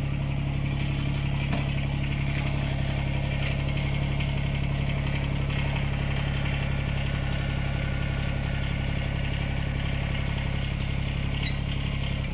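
Kubota BX25D compact tractor's three-cylinder diesel engine running steadily.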